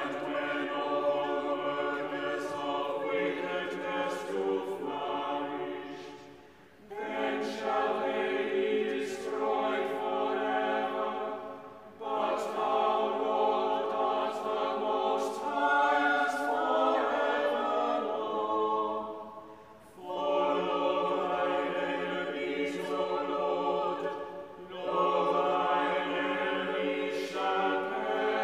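Small mixed choir of lay clerks singing in several sung phrases, each breaking off briefly before the next begins.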